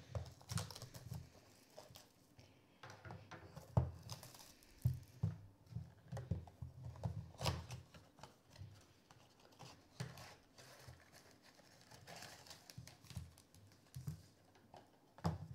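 A cardboard trading-card blaster box being torn open and its packs pulled out and set down on a wooden table: irregular tearing, rustling and small knocks, with a few sharper knocks.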